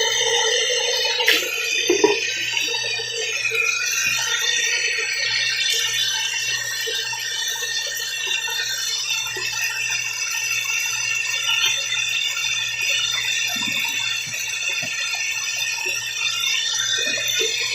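Tap water running steadily into a sink, with a couple of sharp clinks about one and two seconds in.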